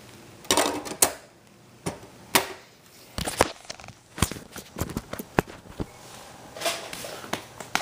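Irregular sharp clicks and knocks, a dozen or more, with a brief pitched squeak about half a second in.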